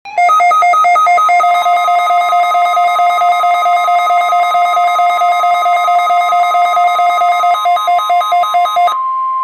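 NOAA Weather Radio warning alarm tone, a steady single tone near 1 kHz, with a harsher buzzing alarm over it: two pitches switching back and forth, faster near the end. The buzzing stops about 9 s in and leaves the plain steady tone.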